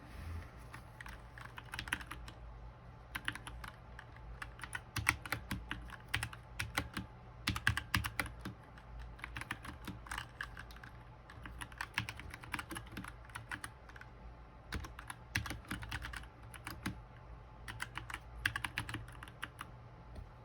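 Typing on a Smart Duck XS61 mechanical keyboard with Cherry MX Brown switches: runs of quick key presses in bursts, with short pauses between them.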